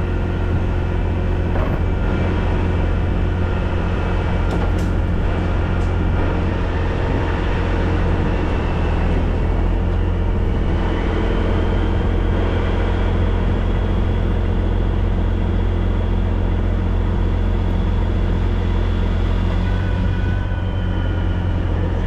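Heavy diesel engine of a wrecker running steadily at a constant speed.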